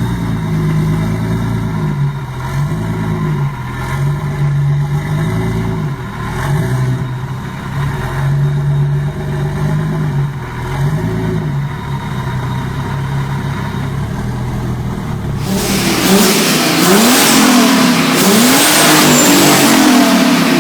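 Turbocharged V6 engine of a Jeep Willys CJ-5 revving up and down over and over. About fifteen seconds in, the sound changes suddenly to a louder, hissing stretch with quicker rises and falls in revs.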